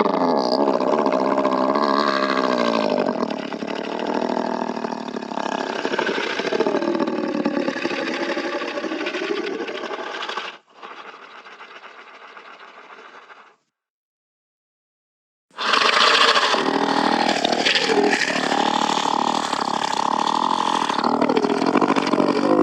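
Monster growl sound effects: a long, rasping growl that bends up and down in pitch, fades to a quieter tail and stops, then after about two seconds of silence a second growl starts.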